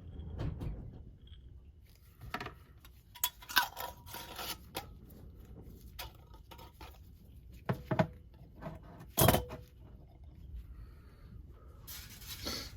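Glass mason jars and their metal lids being handled on a work surface: scattered clinks, knocks and short scrapes, with two louder knocks, one about eight seconds in and one about nine seconds in.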